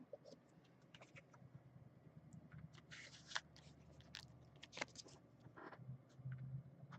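Near silence with faint, scattered small clicks and scrapes of hand handling, over a low steady hum.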